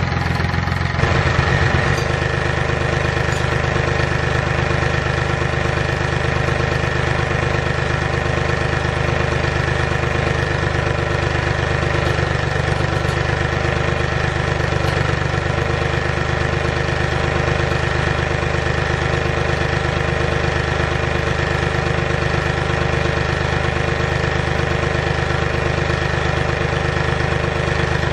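Mahindra tractor's diesel engine running steadily while it pulls a pine log on a chain from its rear boom pole.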